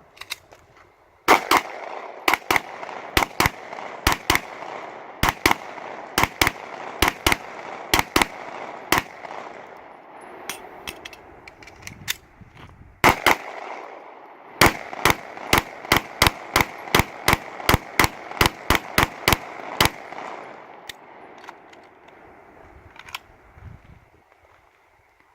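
Gunshots from a Steyr AUG rifle and a pistol in a rifle-to-pistol switch drill. First come pairs of quick shots about a second apart, then a pause of a few seconds, then a fast even string of about three shots a second that stops near the end.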